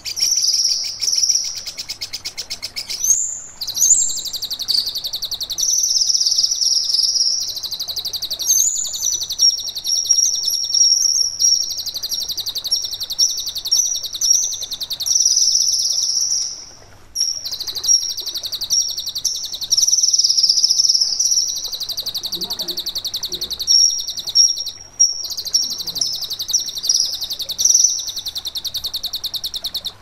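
Kinoi songbird singing a loud, high-pitched song of very rapid, trilled notes, almost without pause. The song breaks off briefly about three, seventeen and twenty-five seconds in.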